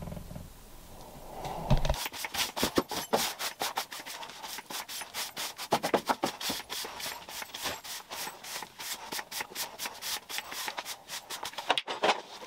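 Rapid, uneven scraping strokes on steel, several a second, starting about two seconds in, as the cut subframe is worked over and tidied.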